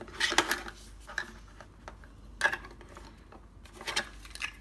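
Hard plastic toy parts clicking and tapping as a small ball and plastic ball-launcher are handled: a quick cluster of clicks near the start, then single clicks every second or so.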